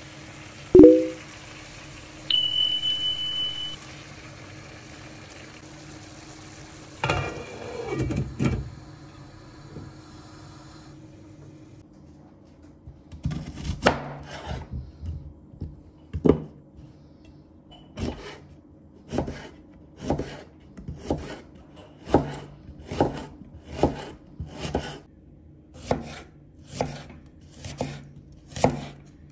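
A knock, a high steady beep lasting about a second and a half, and a clatter over a low hum. Then a chef's knife slices an onion on a wooden cutting board, each cut ending in a sharp knock on the board about once a second.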